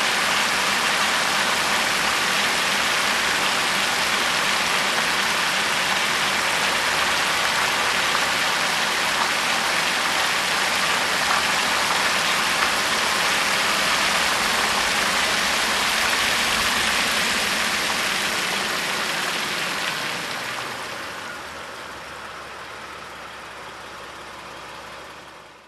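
1991 Oldsmobile Cutlass running, a steady car engine and road noise that fades away over several seconds toward the end, then stops abruptly.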